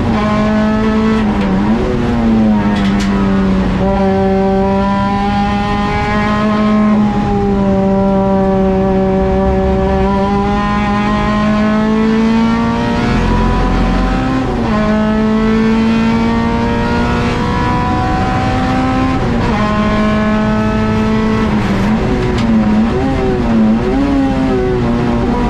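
Honda Integra race car's four-cylinder engine heard from inside the cabin, running hard at high revs with its pitch climbing slowly through long pulls. The pitch dips sharply a few times, and rises and falls in quick wobbles near the end.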